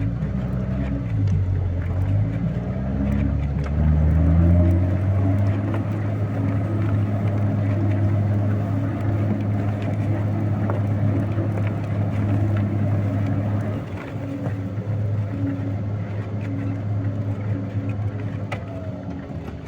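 Vehicle engine heard from inside the cab while driving. The revs dip about a second in, climb until about four and a half seconds, then hold steady at cruising speed.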